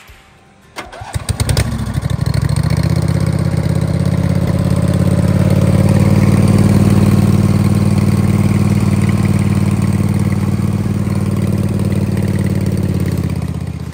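Homebuilt mud mower's engine cranking and catching about a second in, then running loud and steady, swelling slightly before dying away near the end.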